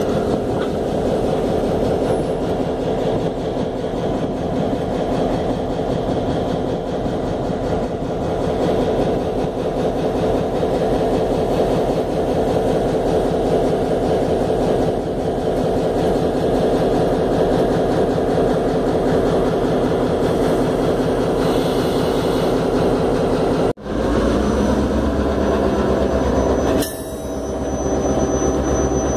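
Diesel-electric locomotive engine running close by, a steady heavy diesel rumble. About 24 seconds in the sound cuts out for an instant and comes back with a deeper, stronger low throb. Near the end a thin high whine appears.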